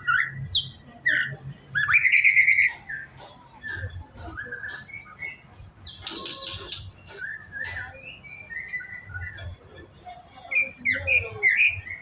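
A young white-rumped shama (murai batu) singing steadily, a varied string of chirps, whistles and rising and falling notes, with its loudest phrases about two seconds in and near the end.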